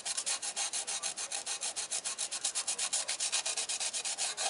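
Sandpaper wet with WD-40 rubbed by hand over a Ford Mondeo cylinder block deck in quick, even back-and-forth strokes, a steady gritty scraping. It is scrubbing off the rubber coating left by the old head gasket to prepare the deck for the cylinder head.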